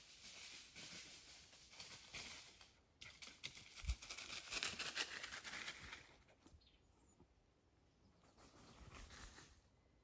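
Faint rustling of leaves with small crackles, in stretches: from the start to about six seconds in, loudest around four to five seconds, then again briefly near the end.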